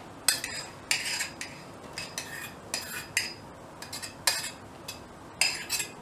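A spoon scraping and knocking against a stainless-steel saucepan and bowl as cooked oatmeal is scooped out of the pan, in an uneven string of short clinks and scrapes.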